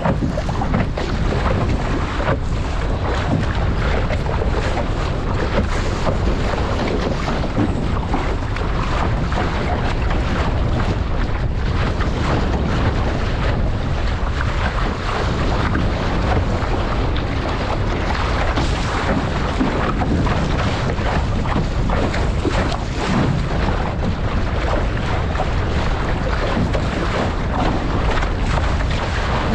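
Constant wind buffeting on a deck-mounted camera microphone over water rushing and splashing along the hull of an RS600 dinghy driving through chop.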